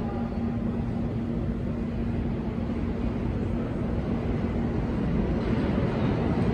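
Steady rumble of a New York City subway train approaching through the tunnel, growing louder over the last second or two.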